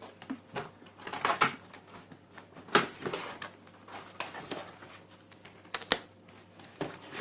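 Cardboard keyboard box being handled and opened: irregular scrapes, taps and knocks of cardboard sliding and bumping, with a few sharper clicks.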